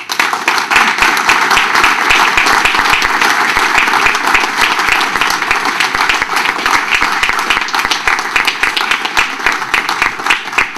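Audience applauding, starting all at once and thinning slightly near the end.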